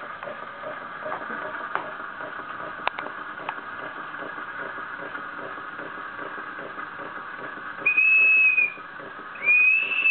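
A 1915 Bing vertical live-steam toy engine runs with a steady steam hiss and a fast, regular beat. Near the end its steam whistle is blown twice, two high, steady toots, and the second is cut off by the end.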